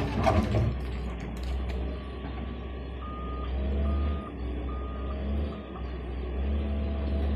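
Doosan DX140W wheeled excavator digging rocky soil: its diesel engine runs with a steady low drone that swells twice, and a clatter of rock and bucket comes in the first second. About three seconds in, a warning alarm beeps four times, evenly spaced.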